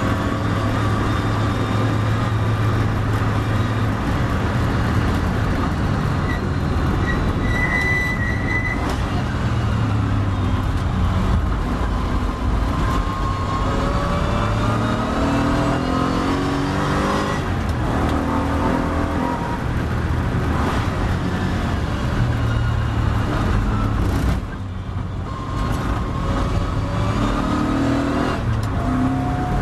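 Triumph TR7 race car's engine heard from on board under racing load, its pitch falling and climbing repeatedly as it brakes down from high speed for a corner and then accelerates back up through the gears. There is a brief lift in loudness about three-quarters of the way through.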